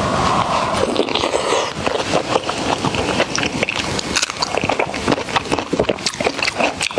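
Eating sounds: a person chewing, with many quick, irregular wet clicks and crunches, and a hissy rushing noise in the first second and a half.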